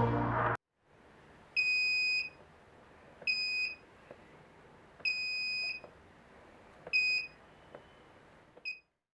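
Arduino piezo buzzer of an ultrasonic-sensor safety alarm beeping: five high, single-pitch beeps of uneven length, one to two seconds apart, the last short and quieter.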